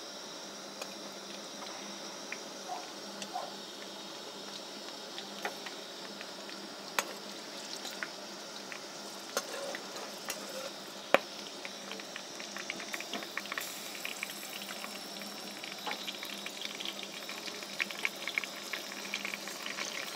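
Whole spices frying in hot mustard oil in a metal kadhai: a steady sizzle with a few sharp clicks of a steel spoon stirring against the pan. The crackle grows busier over the last few seconds.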